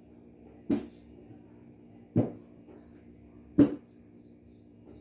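Four sharp knocks or thuds, evenly spaced about a second and a half apart, over a faint steady low hum.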